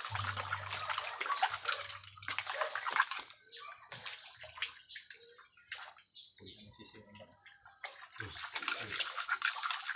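Green mussels being washed by hand in basins of water: water sloshing and shells clicking and scraping against each other, busiest in the first three seconds and again near the end.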